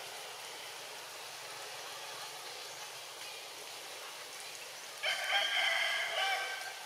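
A loud call about five seconds in, held for about a second and a half on steady pitches, over a steady outdoor background hiss.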